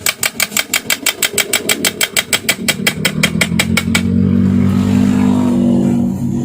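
Rapid, even light hammer taps on metal, about six a second, driving a part into a sewing machine's lower drive. They stop about four seconds in, and a steady pitched sound, most likely background music, takes over.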